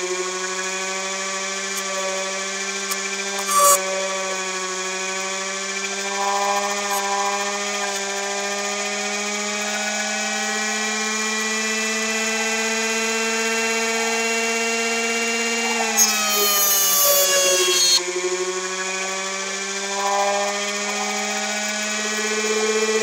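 Air-core motor generator running with a steady pitched whine that slowly rises. About three-quarters of the way through, the pitch dips while a loud harsh hiss lasts about two seconds, then the whine climbs back; a sharp click comes a few seconds in.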